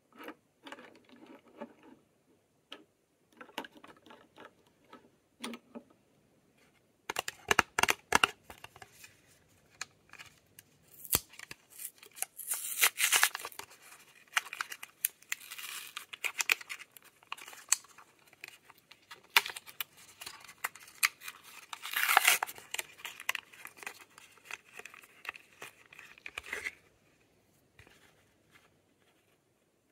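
Lip balm packaging being unwrapped by hand: packaging tearing and crinkling, with sharp clicks and handling noise. It starts faint, comes in louder, irregular bouts after a few seconds, and stops shortly before the end.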